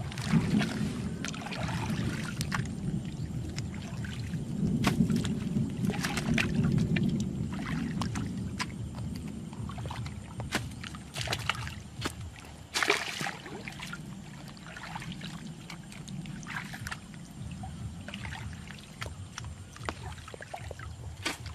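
A hoe chopping into wet mud and shallow water, with splashing and sloshing as the person wades. Irregular wet strikes are scattered throughout over a steady low rumble.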